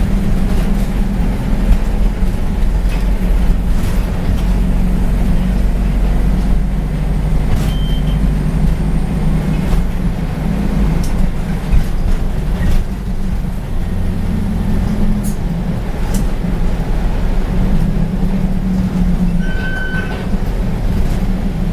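Isuzu NQR bus's diesel engine running steadily, heard from inside the passenger cabin as a low drone, with a few scattered clicks and rattles.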